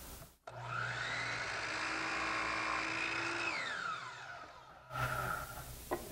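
Compound miter saw starting with a rising whine and running at speed while cutting a piece of scrap wood. About three and a half seconds in it is switched off, and the whine falls as the blade spins down.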